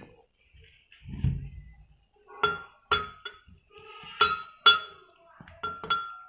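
Cubed mango being added to a glass blender jar: a soft thump about a second in, then about eight sharp clinks against the glass, each ringing briefly.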